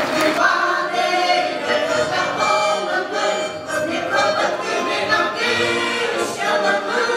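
A Russian folk vocal ensemble singing together in chorus on stage, with applause fading out at the very start.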